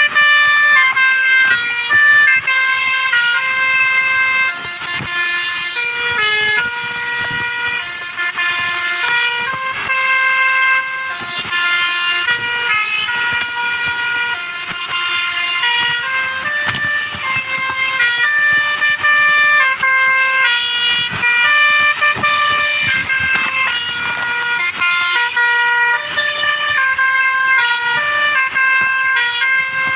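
Basuri V3 telolet horn on a tour bus, sounding through roof-mounted horn trumpets and playing a long tune of held notes that step from pitch to pitch without a break.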